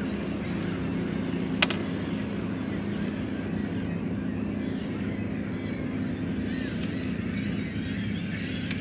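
A boat motor running with a steady low hum, with one sharp click about a second and a half in.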